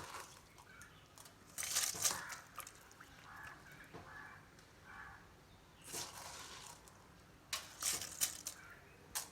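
Soaked rice being tipped from a bowl into coconut milk in a pressure cooker: a few short scraping, rustling bursts with quieter stretches between them.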